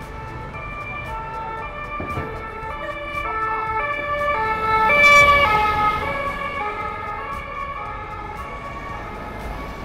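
Police car's two-tone siren passing by, alternating between two pitches. It grows louder to a peak about five seconds in, then fades as the car moves away.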